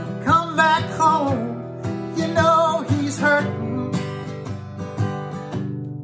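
Acoustic guitar strummed and picked, with a man's voice singing two short held phrases over it, wavering in pitch, in the first half; after that the guitar plays on alone.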